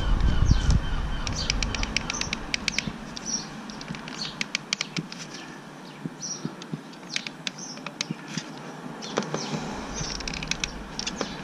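Caulking gun clicking in quick runs as its trigger is squeezed to pump silicone adhesive around a fish-finder transducer, with short high bird chirps in the background.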